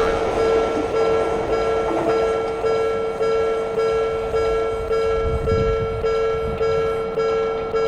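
Railroad crossing warning bell ringing, the Japanese "kan-kan" signal, about two and a half strikes a second. A low rumble swells under it about five seconds in.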